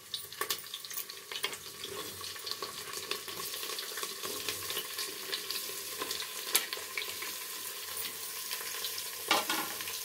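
Hot oil in an aluminium pressure cooker sizzling and crackling steadily as sliced onions are dropped into it, on top of whole spices, garlic, chilli and ginger. There is a brief louder burst near the end.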